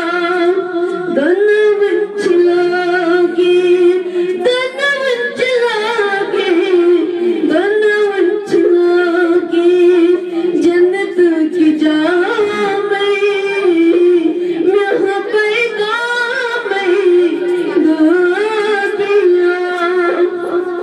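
A woman's solo voice singing a manqabat, a devotional praise poem, unaccompanied. She holds long notes with wavering, ornamented turns, with short breaks between phrases.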